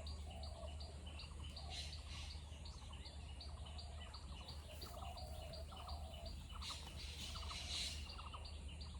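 Forest birds calling: a steady run of short high chirps, about three a second, with other lower calls and a few quick rattling notes between about 6.5 and 8 s, over a steady low hum.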